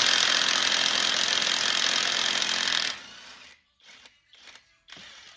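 Impact wrench hammering on a wheel lug nut, running steadily for about three seconds and then stopping; a few faint clicks and knocks follow.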